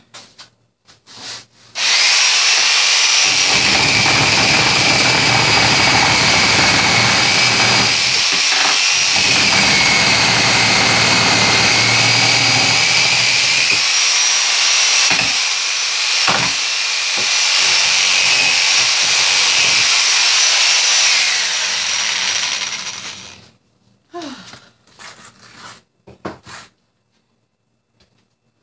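An electric power saw runs for about twenty seconds with a steady high motor whine that wavers slightly in pitch, cutting into wood through much of its run, then stops. A couple of sharp knocks sound partway through.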